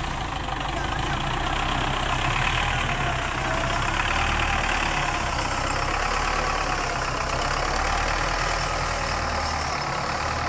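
Belarus 510 tractor's diesel engine running steadily under load as it pulls a trolley heaped with sugarcane.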